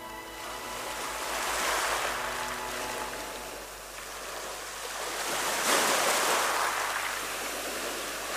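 Small waves washing onto a sandy shore, the rush of water swelling twice, about two seconds in and again about six seconds in. Background music fades out at the very start.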